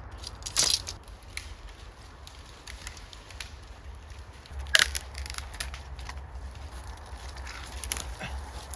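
Dry twigs and woodland floor debris crunching and snapping in irregular cracks, the two sharpest about half a second in and just under five seconds in, over a low rumble.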